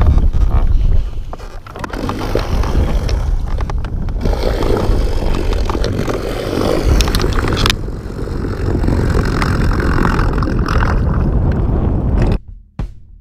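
Wind buffeting the microphone over water noise around a small boat, with a few short knocks. Near the end it gives way to music with a steady drum beat.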